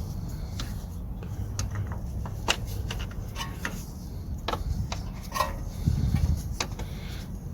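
Scattered light clicks and knocks, a dozen or so, over a steady low hum.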